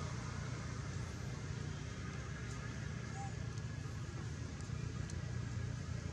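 Steady low rumble and hiss of outdoor background noise, with a few faint ticks around the middle.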